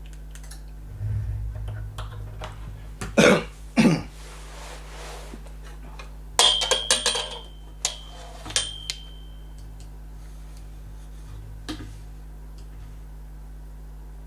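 A person coughs twice in quick succession. A few seconds later comes a cluster of sharp knocks and clicks, one of them ringing briefly.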